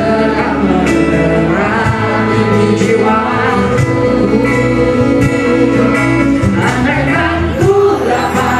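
Live pop band playing a slow song: a woman singing over strummed acoustic guitars, bass guitar and drums.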